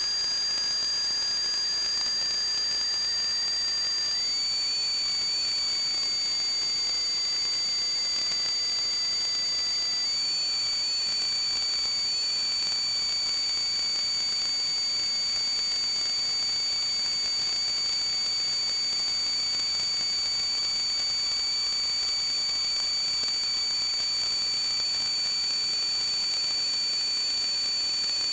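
A steady high-pitched whistle over a hiss, several tones sounding together, stepping slightly in pitch about 4 and 10 seconds in.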